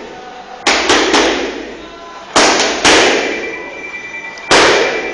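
Boxing-glove punches landing on focus mitts in combinations: a quick three smacks about a second in, two more a little later, then a single one near the end. Each smack echoes briefly in the room.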